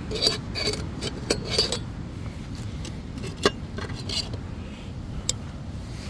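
A run of about seven light clinks and knocks, some with a short ring like metal or glass, as small items are handled, over a steady wind rumble.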